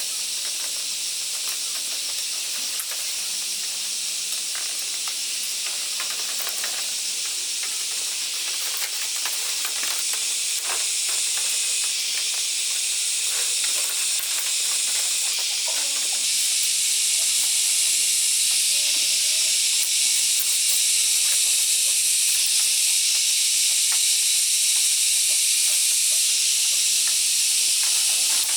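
Steady high-pitched insect chorus, a dense shrill hiss that grows a little louder about halfway through, with faint scattered taps.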